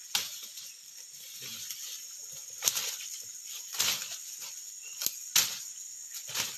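Footsteps pushing through dense undergrowth: leaves rustling and dry twigs and stems crunching and snapping underfoot in irregular bursts, the loudest snaps a little under three seconds in and again about five and a half seconds in.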